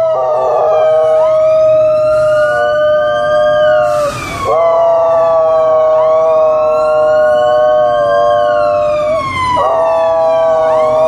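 Alaskan Malamute howling in long, held notes that rise and slowly fall, pausing for breath about four seconds in and again near the end, together with a wailing ambulance siren it is answering.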